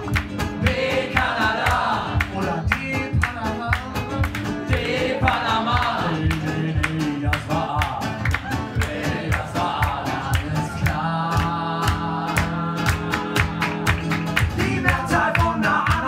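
Two acoustic guitars strummed fast in a driving gypsy-style rhythm, with two men singing along; the voice holds one long note a little past the middle.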